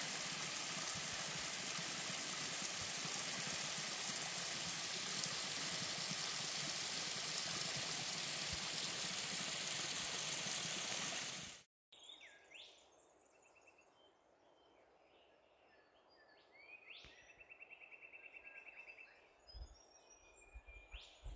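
Small creek running over rocks: a steady rushing hiss that cuts off abruptly about halfway through. Faint bird calls follow, among them a rapid trill.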